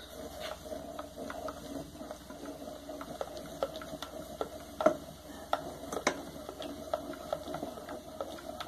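Wooden spoon stirring melted sugar in a metal pot, knocking and scraping against the pot's sides and bottom in quick, irregular clicks, with a sharper knock about five seconds in and again about six seconds in. The sugar has fully melted into a runny caramel.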